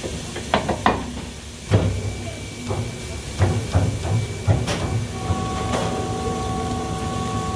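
Large commercial stand mixer with a wire whisk beating a bowl of makgeolli rice-wine bread batter. Several metal knocks and clanks in the first few seconds, then about five seconds in the machine settles into a steady motor whine as the whisk churns the batter.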